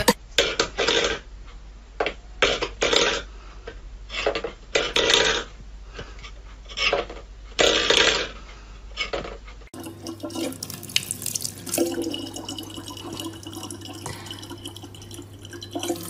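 A dozen short, uneven noises over a low hum, then, from about ten seconds in, a thin stream of water running steadily from a kitchen tap.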